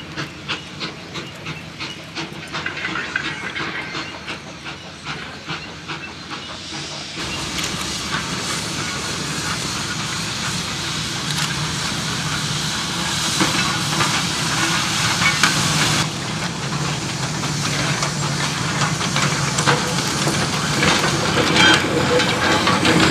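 L&YR 'Pug' 0-4-0 saddle tank steam locomotive working a short goods train. At first there is a quick, even rhythm of beats, then a steady loud hiss of steam that grows louder toward the end.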